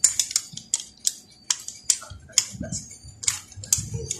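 Sharp, irregular metallic clicks and taps, about three a second, as a screwdriver works at the Honda Wave 125's cylinder block and the block is loosened from the crankcase studs.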